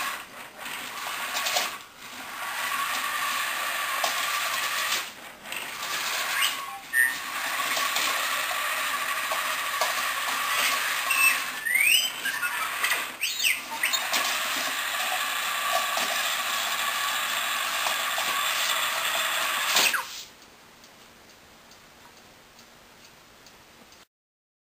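Hasbro R2-D2 Interactive Astromech Droid toy's geared drive motors whirring as it moves across a tile floor in patrol mode, with a few short electronic beep-whistles about halfway through. The motor noise cuts off near the end.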